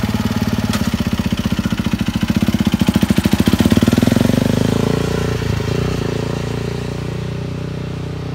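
KTM 450cc single-cylinder four-stroke dirt bike engine in a Power Wheels Porsche kart, running with a fast even beat. It gets loudest about three to four seconds in as the kart pulls away, then fades as it drives off.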